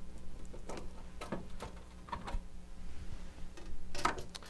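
Light, irregular clicks and ticks of a screwdriver backing out a screw and the sheet-metal cover of a dehumidifier's electrical compartment being taken off, with a short cluster of clicks near the end.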